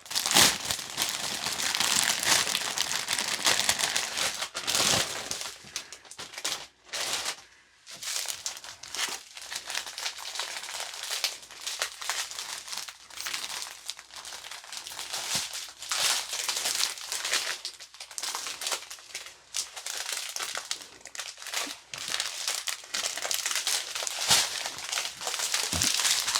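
Plastic packaging crinkling and rustling as it is handled, in irregular bursts with brief lulls.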